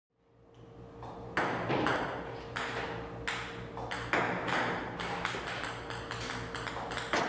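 Table tennis balls fired by a ping-pong robot, clicking sharply on the table in an irregular series that comes faster toward the end, over a steady hum.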